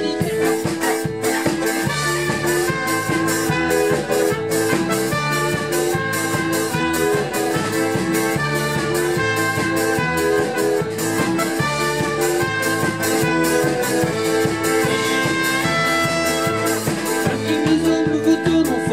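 Live band playing an instrumental passage: a trumpet over accordion, acoustic guitar and drum kit, with a steady beat.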